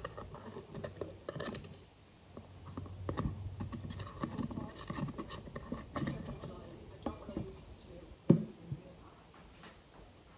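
Knife blade scraping and tapping at the pressed powder in the pans of an eyeshadow palette, in irregular scratches and clicks. There is one sharper knock about eight seconds in.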